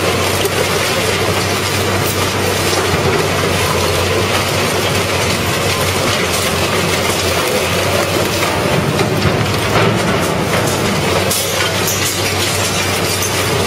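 Hammel VB 950 DK twin-shaft shredder crushing and tearing a car body: steady grinding and crunching of sheet metal over the machine's low engine hum, with a few sharper cracks.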